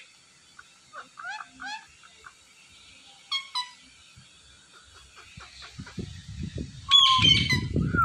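Indian ringneck parakeets giving short chirping calls, in pairs at first, then a louder squawk near the end. Under it, a low rumbling noise builds over the last two seconds.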